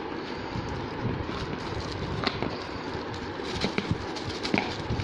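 Hands handling the packed accessories in a cardboard box: a few short clicks and rustles as a small plastic bag of parts is picked up, over a steady background hiss.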